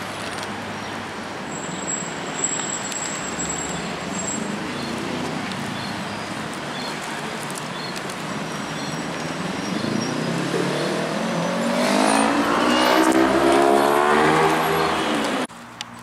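Steady city road traffic noise. About two-thirds of the way through, a car accelerates past, its engine rising in pitch over several seconds and becoming the loudest sound, then cutting off suddenly near the end.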